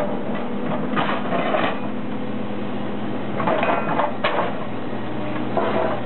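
Excavator engine and hydraulics running steadily while a Hydraram HRC-20R rail cropper's jaws crop steel rail, with metallic clanking and the ringing of struck rail pieces, and a sharp crack about four seconds in.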